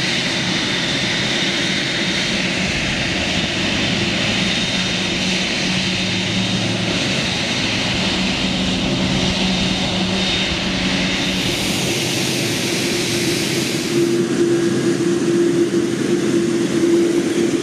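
Boeing 747-8F's GEnx turbofan engines running: a steady jet roar with a low hum and a high whine, growing a little louder in the last few seconds.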